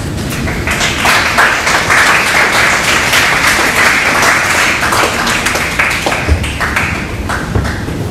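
Audience applauding. The applause starts about a second in and thins to scattered claps near the end.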